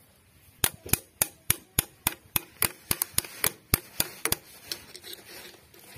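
A wrench working the nut on a tractor's brake actuating lever: a quick, even run of about a dozen sharp clicks, roughly three to four a second, that stops about four and a half seconds in.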